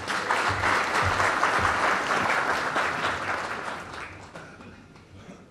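Audience applauding. The clapping starts at once, holds full for about three seconds, then dies away over the last second or two.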